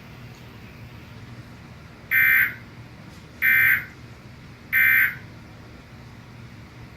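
Emergency Alert System end-of-message code: three short bursts of screechy two-tone SAME digital data, each under half a second and about 1.3 seconds apart, signalling that the alert message is over.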